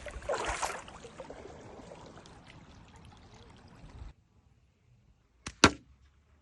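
Water pouring and splashing, which cuts off abruptly about four seconds in; then two sharp clicks in quick succession, the second one loud.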